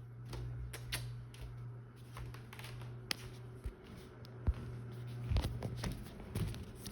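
A steady low hum with scattered light taps and clicks over it, the hum dropping out briefly just before the middle.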